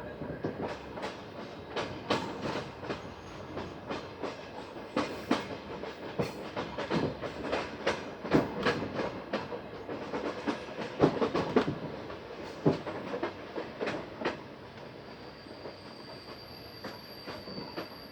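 Passenger train wheels clacking over rail joints and points as the train approaches a station, heard from aboard a coach. The knocks come thick and irregular through the middle, then thin out and grow quieter as the train slows. Near the end a high, thin brake squeal sets in.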